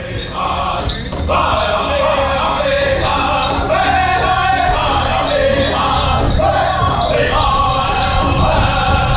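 Powwow drum group singing a chicken dance song together over a steady, driving beat on a large powwow drum.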